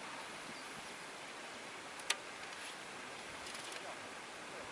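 Steady faint open-air hiss, with one sharp click about two seconds in as an arrow is handled at the barebow recurve.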